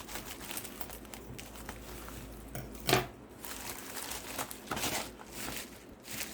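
Shipping packaging being cut and torn open by hand: crinkling and rustling with many small crackles, and one louder sharp crack about three seconds in.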